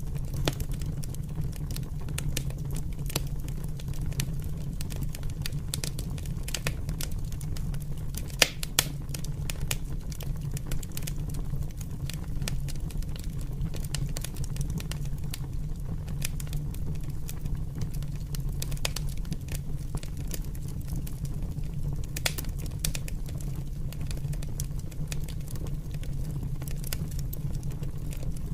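Open fire burning with tall flames: a steady low rumble with frequent crackles and pops, and a few louder snaps about eight seconds in and again past twenty seconds.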